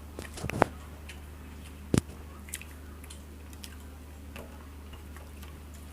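Close-up eating sounds of rice and mutton curry: wet chewing and squishing with scattered small clicks, a short cluster of them about half a second in and one sharp click about two seconds in, over a steady low hum.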